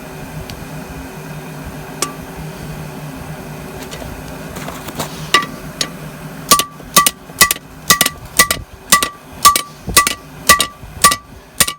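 Hammer blows on a railroad-track anvil while forging: one blow about two seconds in, then a steady run of blows about two a second, each with a short, clear metallic ring.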